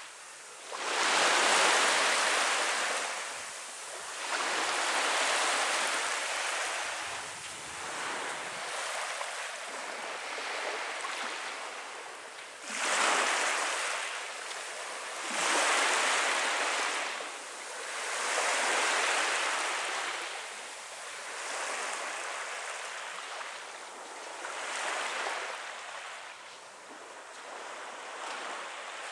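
Small waves breaking and washing up onto a sandy beach, each rush of surf swelling and fading every few seconds.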